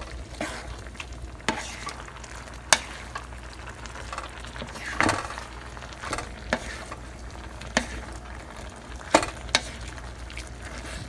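A wooden spoon stirring rotini pasta through a creamy sauce in a hot pan, with a steady low sizzle. The spoon knocks sharply against the pan now and then, about eight times.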